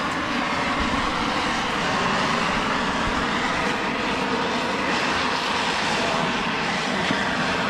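Farm tractor engine running steadily, a constant mechanical drone with broad hiss and no pauses or changes.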